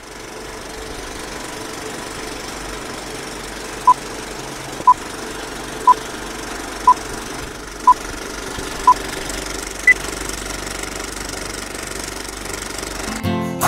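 Old film projector running steadily, with a film-leader countdown beeping once a second: six beeps at one pitch, then a single higher beep. Acoustic guitar strumming comes in near the end.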